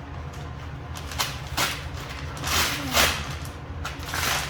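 Packaging being torn open by hand: several short rips and rustles, the longest and loudest between about two and a half and three seconds in, and another near the end.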